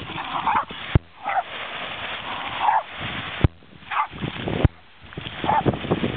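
Dogs barking in short bursts, about five times, with a few sharp knocks in between. Wind on the microphone and surf grow louder near the end.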